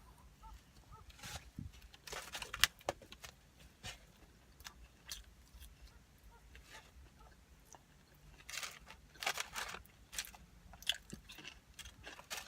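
Close-miked chewing of food, with bursts of crackly crunching about two seconds in and again around nine seconds in.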